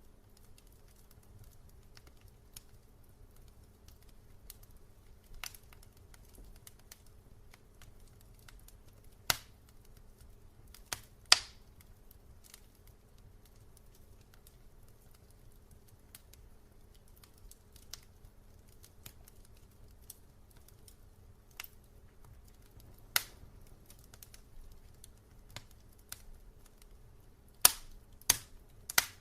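Wood fire burning in a fireplace, crackling with scattered sharp pops, a few loud snaps standing out, over a faint low rumble of the flames.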